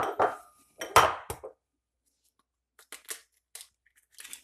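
Crockery knocking: a small egg bowl clinks against the large ceramic mixing bowl and the counter several times in the first second and a half as raw egg is tipped into grated potato. Lighter scattered clicks and rustles follow as gloved hands start working the mixture.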